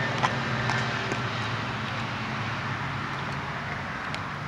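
Steady low rumble of road traffic, with a few light clicks of a utensil scraping inside a plastic food container.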